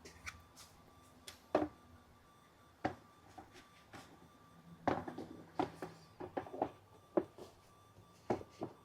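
Hard plastic parts of a vertical planter being handled and fitted together: scattered short clicks and knocks, a few singly early on and a quicker run of them in the second half.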